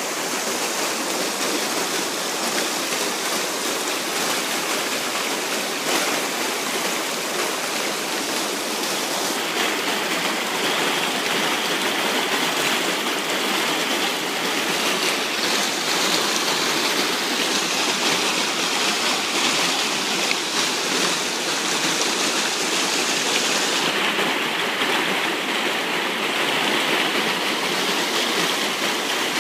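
Small rocky stream rushing over stones in little rapids, a steady, even flow of water.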